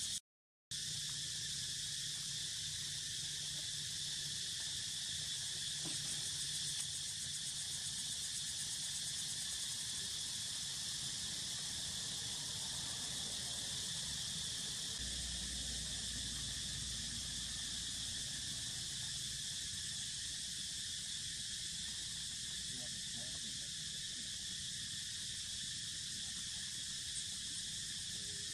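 Steady, high-pitched chorus of insects droning without a break, with a brief dropout to silence just after the start.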